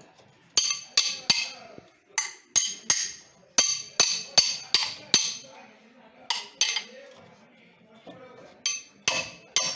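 Sharp metal clinks and taps in quick runs of two to five, each ringing briefly: brake pads being knocked and worked out of a disc-brake caliper bracket.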